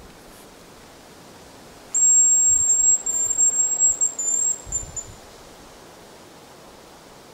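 Hazel grouse decoy whistle blown close by. It starts about two seconds in with a thin, very high whistle held for about a second, then breaks into a string of shorter, slightly falling notes, imitating the hazel grouse's song.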